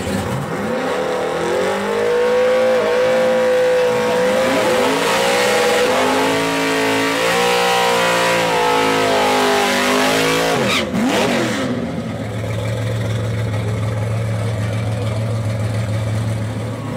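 Drag car's engine revved hard and held high through a burnout, its rear tyres spinning in thick smoke; about eleven seconds in the revs drop away and the engine settles to a steady idle.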